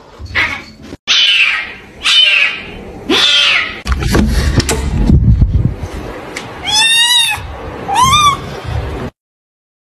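A kitten gives three loud, harsh, drawn-out yowls, the "demonic" voice. After a stretch of low rumbling noise come two short, clear, high meows, its sweet "I'm just a baby" voice.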